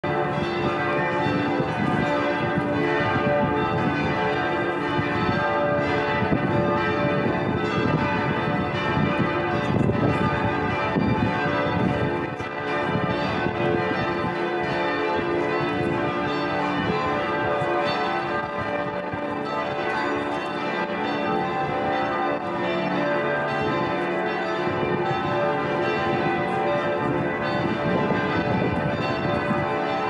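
Church bells of Paderborn Cathedral and the Marktkirche ringing together in a full peal, many bells of different pitches struck over and over and overlapping without a break.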